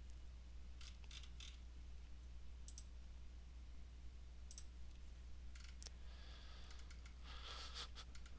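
Faint computer mouse clicks: scattered single clicks and a few quick runs of clicks, over a low steady hum.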